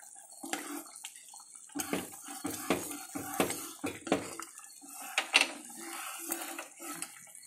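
Steel ladle stirring thick corn soup in a metal pot, clinking and knocking against the pot at irregular intervals while the soup sloshes.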